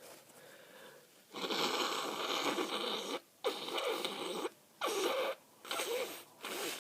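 Very wet nose blow from a nose stuffed up with a cold: one long blow followed by three or four shorter ones.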